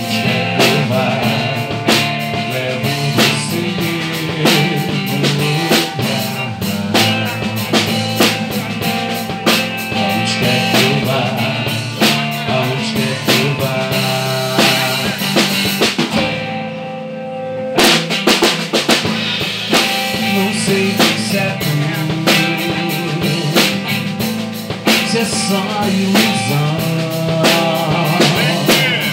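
Music with a drum kit playing a steady beat over bass and other instruments. About sixteen seconds in, the drums drop out for a second or two, then come back.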